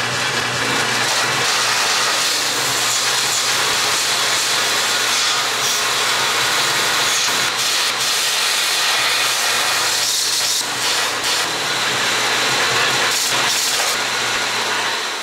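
Bench belt-and-disc sander running steadily while a metal rear shock part is pressed against the belt and ground down, giving a continuous grinding noise.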